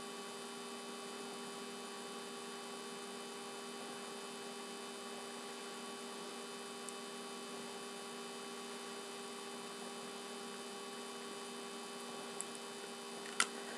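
Steady electrical hum made of several fixed tones, unchanging throughout, with a brief click near the end.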